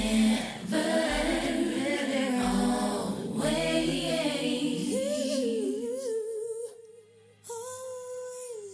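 R&B song with a woman singing layered vocals over a bass beat; about halfway through the beat drops out, leaving a single sung vocal line that breaks off briefly near the end and then resumes.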